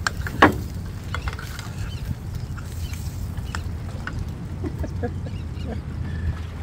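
A metal spoon and other utensils clicking and scraping against a small frying pan and plate. A short, loud sound falling in pitch comes about half a second in. A steady low rumble runs underneath.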